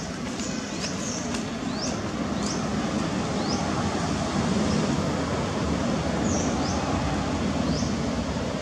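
Outdoor ambience: a steady low rumble, with short, quick, high bird chirps repeating about once a second at first, then more sparsely.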